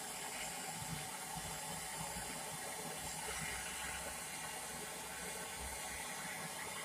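MAP gas torch burning with a steady hiss while it heats the small end of a connecting rod until the steel turns blue, expanding it so the wrist pin can be slid in without a press.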